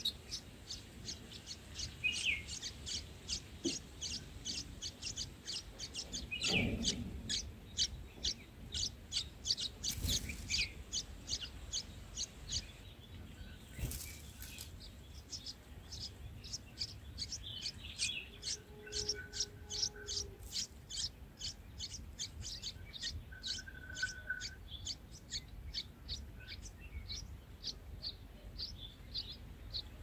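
Red-whiskered bulbul nestlings begging at the nest: a rapid run of short, high, thin cheeps, about three to four a second, that breaks off briefly about halfway through and then resumes. A few louder rustles of the parent moving at the nest come in the first half.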